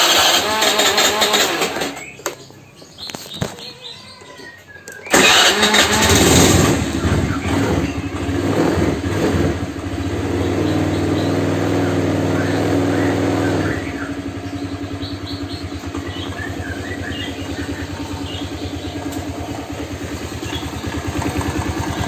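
Old Honda Vario scooter's single-cylinder engine started on the electric starter: a first burst that dies away, then it catches about five seconds in, revs briefly and settles to a steady idle that drops lower near the middle. The idle runs smooth but with a light "tok tok tok" knock, which can come from a loose radiator fan, play in the flywheel magnet or a worn front pulley rather than the connecting rod.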